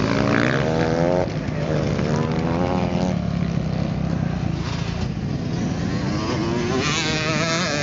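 Dirt bikes racing on a motocross track, engines revving up and shifting gears: the engine pitch rises and breaks off three times as riders accelerate, over the steady drone of other bikes.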